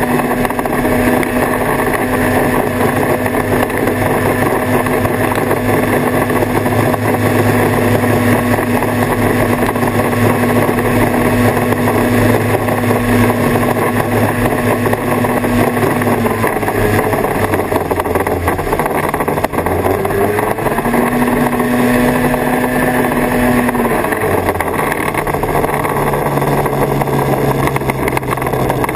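1979 Kawasaki Invader 440 snowmobile's two-stroke engine running at a steady cruise, with track and running noise. The engine note drops about two-thirds in, picks up briefly, then settles lower near the end as the throttle eases off.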